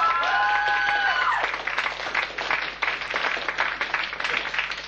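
Audience applauding for an award recipient, a dense patter of clapping. A few high, drawn-out whoops from the crowd sound over it in the first second and a half.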